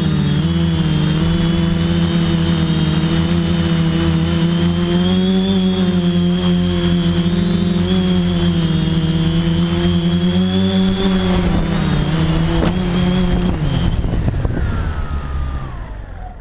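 TBS Discovery quadcopter's electric motors and propellers humming steadily, heard from the onboard camera, with a high whine over the hum and the pitch wavering as the throttle changes. About thirteen seconds in, the pitch drops and the motors wind down with a falling whine as the quadcopter lands.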